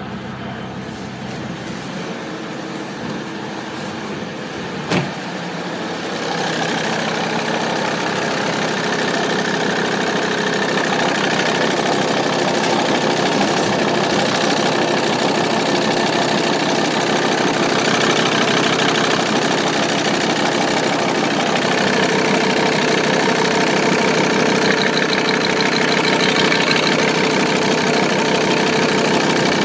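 Volkswagen Transporter T4's 2.5 TDI five-cylinder diesel engine (code ACV) idling steadily, with a single sharp click about five seconds in. It is quieter for the first six seconds, then louder as it is heard from the engine bay.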